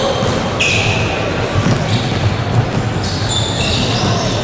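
Basketball play on a hardwood gym floor: sneakers squeak in short high chirps and the ball bounces, with the echo of a large hall.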